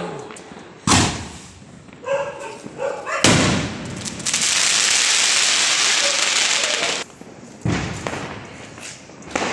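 Diwali firecrackers going off outdoors: a sharp bang about a second in, then a louder bang near three seconds followed by about three seconds of steady hissing as a firework sprays sparks, then two more bangs near the end.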